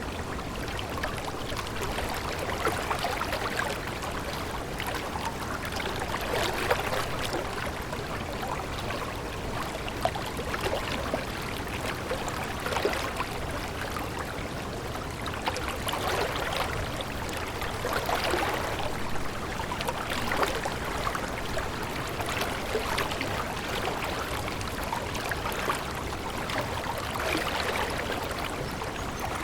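Running water, a steady splashing rush that swells and eases every few seconds.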